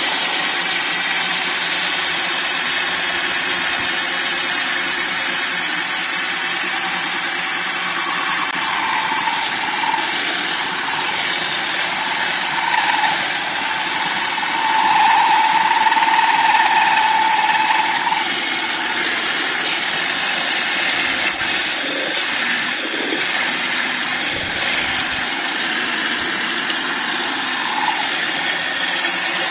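Cordless drill running steadily with a glass hole saw grinding its way into the wall of a glass jar, the cut kept wet with water. A higher whine comes and goes through the middle, loudest a little past halfway.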